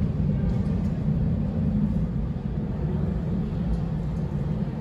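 A low, steady rumble that swells and then slowly fades.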